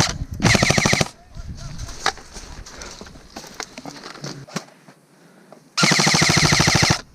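Elite Force MK18 airsoft rifle firing full-auto bursts in rapid, even shots: a short burst about half a second in, then a longer burst of about a second near the end.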